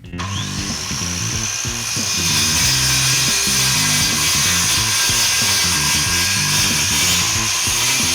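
A power tool starts up with a brief rising whine and then runs steadily, its high whine and hiss the loudest sound, over background music.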